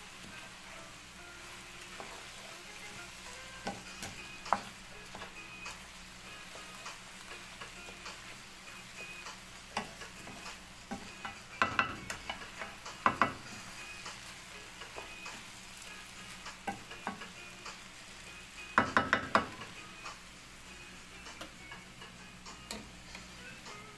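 Rice and toasted vermicelli stirred with a wooden spatula in a frying pan over a steady sizzle, with scattered scraping clicks. Louder bursts of scraping come about halfway through and again near three quarters of the way.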